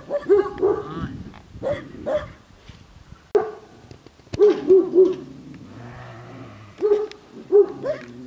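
Large shepherd dogs barking in short bouts of two or three barks, with a run of three about four and a half seconds in and two more near the end.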